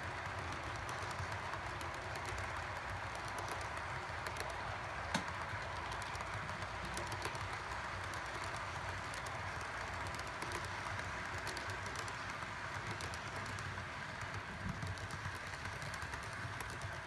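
Model railroad freight cars rolling past on the track: a steady rolling rumble with many small clicks of the wheels on the rails, and one sharper click about five seconds in.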